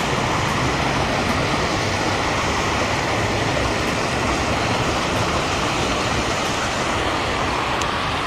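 Loud, steady rush of fast-running water.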